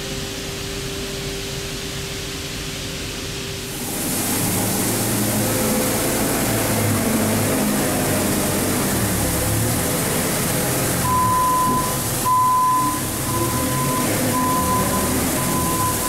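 Wheat pouring with a steady machine hum, then a telehandler working a grain heap in a shed, its engine running under a hiss of falling grain. From about eleven seconds in, the telehandler's reversing alarm beeps steadily, a little under twice a second.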